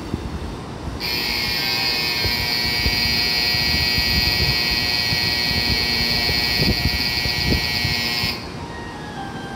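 Shinkansen platform departure bell: a loud steady electric ringing that starts about a second in and stops abruptly after about seven seconds, the signal that the train's doors are about to close.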